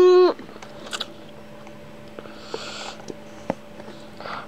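A toddler's brief held vocal note at the very start, then small clicks of a plastic spoon in a plastic dessert cup and soft breaths as she eats, over a faint steady hum.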